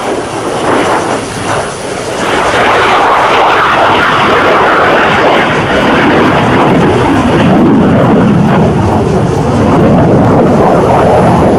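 Jet noise of a two-seat F-16 fighter's turbofan engine on a low flyby, building over the first couple of seconds and then staying loud.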